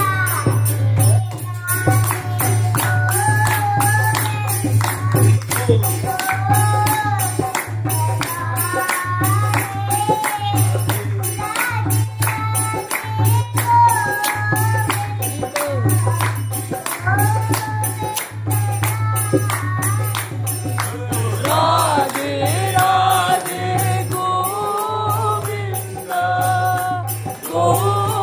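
Devotional chant music (kirtan): voices singing a melody over jingling hand percussion and a low beat pulsing about once a second.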